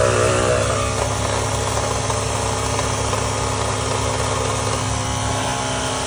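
Portable electric tyre inflator (small air compressor) running with a steady, loud hum, pumping air into a completely flat scooter tyre.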